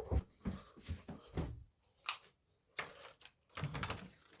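Footsteps and knocks, irregular, about one every half second to second, as a person walks through a house toward the front door.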